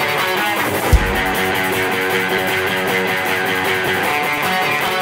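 Background music: the instrumental intro of a worship pop-rock song, led by guitars, with a deep bass hit about a second in.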